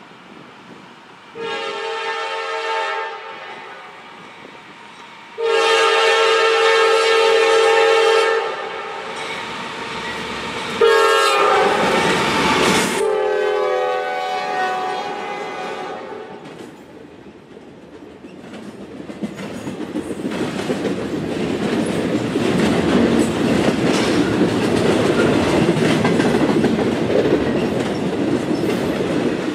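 Norfolk Southern freight train's horn sounding three blasts: a short one, a long one, then one that drops in pitch as the lead locomotive passes. Then the diesel locomotives go by and the intermodal cars roll past, their wheel and rail noise growing louder and staying steady with a clickety-clack.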